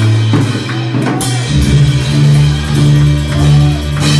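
Loud, upbeat praise music played on a drum kit over a bass line, with cymbal crashes about a second in and again near the end.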